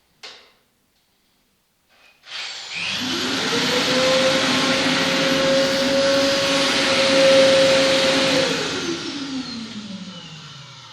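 A short click, then a vacuum cleaner motor in a homemade cyclone construction vacuum starts about two seconds in. It runs with a steady whine and rush of air for about six seconds, then is switched off and its pitch falls as it spins down.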